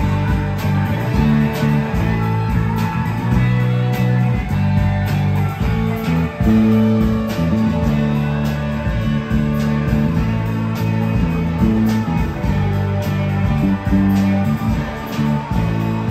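Live rock band playing: electric guitars and electric bass over a steady drum-kit beat.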